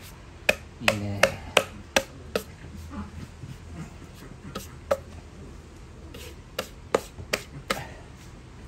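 Hand slapping and tapping a freshly sanded wooden cutting board to knock the sawdust off. About six sharp taps come in quick succession, then a few more near the end.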